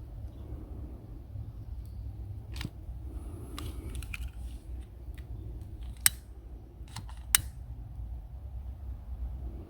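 Scattered sharp cracks and clicks of dry firewood, two louder snaps about six and seven seconds in, over a steady low rumble.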